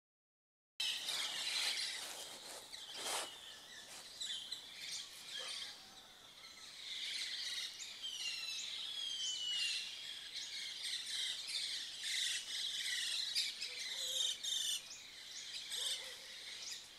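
Several wild birds calling over one another: quick chirps and trills, with a rapid series of descending whistled notes about nine to ten seconds in. The sound starts abruptly just under a second in, after silence, and there is a short burst of noise about three seconds in.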